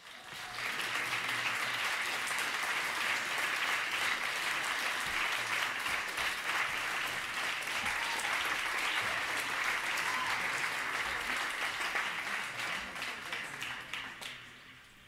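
Audience applauding: dense, steady clapping that dies away over the last second or so.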